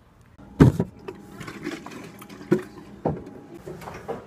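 A few sharp knocks and clunks over a steady low hum, the loudest knock coming about half a second in.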